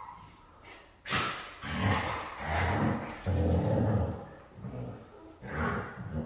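Dogs growling in rough play as an adult Siberian husky wrestles a puppy: a run of about six low growls, each half a second to a second long, beginning about a second in.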